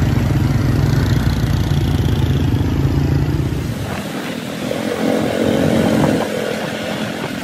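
Motorbike engine running while riding along a road, with a change in the sound about four seconds in.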